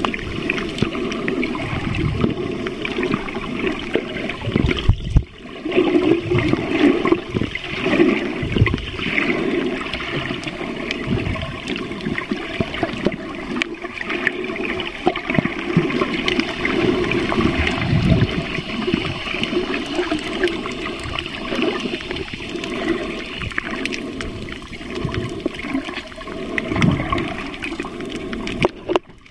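Water rushing and gurgling around an underwater camera while snorkeling, with irregular low surges and thumps.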